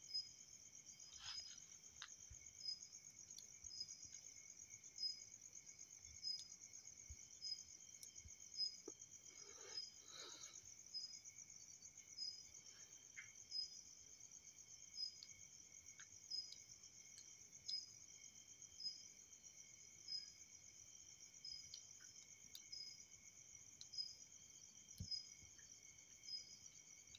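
Near silence: a faint steady high-pitched chirring background with regular faint ticks a little more than once a second, and a few soft clicks.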